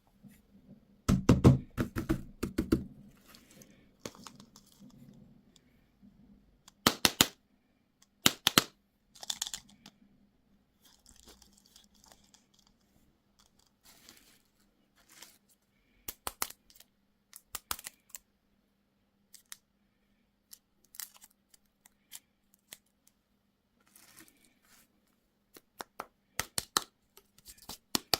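Sharp crackles and clicks in short scattered bursts, the loudest group about a second in, from candy and its crinkly packaging being handled and torn.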